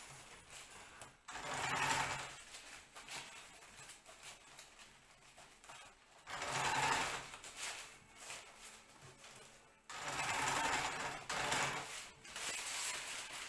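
Domestic sewing machine stitching fabric in four short runs of one to two seconds each, stopping between them.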